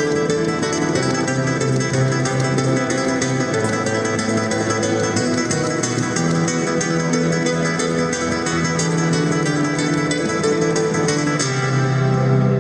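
Solo classical guitar, fast flamenco-style picked runs over ringing bass notes. About 11 seconds in, the quick high notes thin out, leaving lower, sustained notes.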